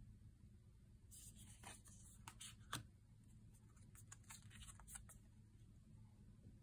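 Faint rustles and light taps of stiff oracle cards being slid off one another and laid down on a velvet cloth: a scatter of short sounds from about a second in until about five seconds in, with one sharper tap near three seconds.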